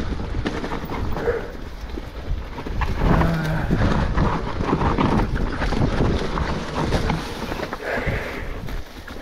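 Electric mountain bike rolling down a rough forest trail: knobby tyres crunching over dry leaves and rocks, the bike rattling and knocking over the bumps. A brief low hum sounds about three seconds in.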